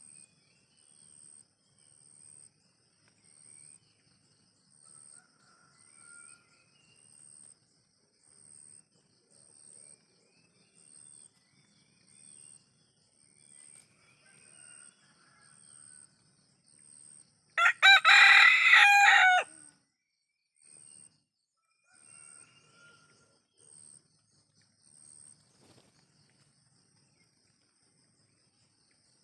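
An ayam kampung (Indonesian village chicken) rooster crows once, loudly, for about two seconds just past the middle. Around it an insect chirps in a steady pulse about once a second, with faint bird calls.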